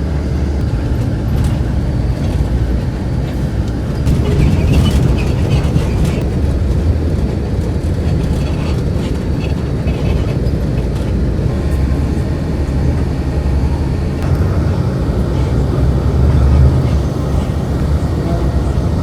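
Steady low rumble of a moving vehicle heard from inside, with scattered small rattles and clicks.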